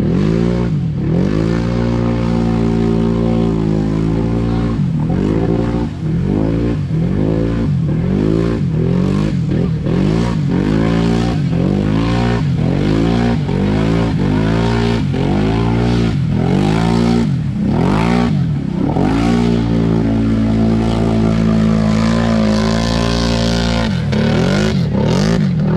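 ATV engine revved up and down over and over, about once a second, as the machine churns through deep mud; it holds a steadier, higher pitch for a few seconds late on, then swings again near the end.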